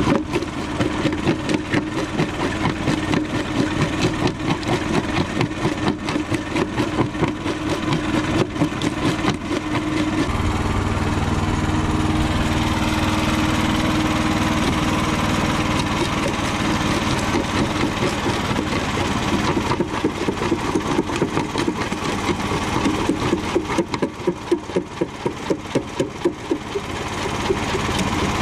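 Homemade jaw crusher running and crushing chunks of concrete, its moving jaw knocking in a steady rhythm of about three to four beats a second. From about ten seconds in the beat smooths into a steadier, deeper hum, and it comes back near the end.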